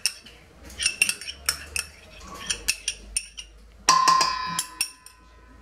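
Spoon clicking and scraping against a stainless steel mixing bowl as grain salad is tipped in. About four seconds in, a sharper knock sets the bowl ringing for over a second.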